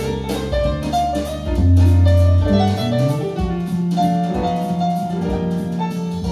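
Jazz recording played back through Paiyon P81 hi-fi loudspeakers driven by a Qinsound 50A amplifier: piano notes over sustained low bass notes, heard in the room.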